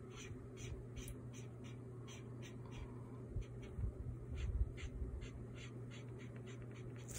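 Short scratchy strokes of a pen on paper, a few a second and irregular, as shadows are inked in, over a steady low hum.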